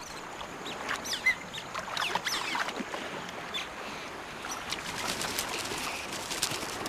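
A family group of smooth-coated otters splashing and wading through river shallows, with short, high, gliding chirps from the otters several times.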